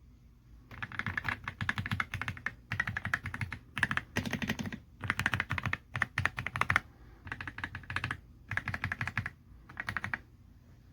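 Typing on an Aula F65 mechanical keyboard with Graywood V3 switches: quick bursts of key clacks with short pauses between them.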